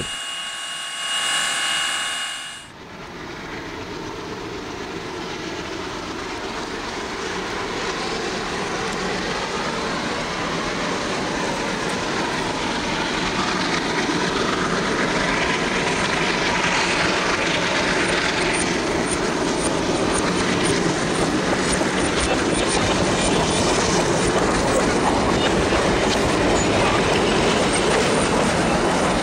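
A train rolling along the rails, a steady rushing noise that builds over the first half and then stays loud. A short held tone sounds in the first couple of seconds before the rolling noise takes over.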